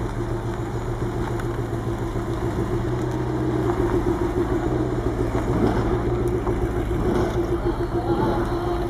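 V8 engine of a Mercedes-Benz CLK 63 AMG Black Series Formula 1 safety car running at low revs as the car rolls slowly past, a steady engine note that gets a little louder partway through.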